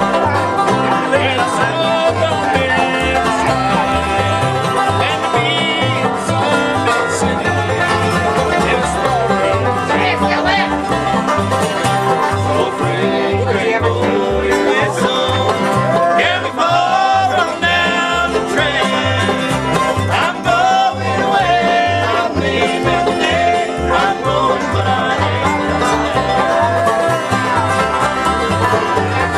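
Acoustic bluegrass jam: banjo, acoustic guitars and upright bass playing a tune together, the bass plucking a steady beat underneath.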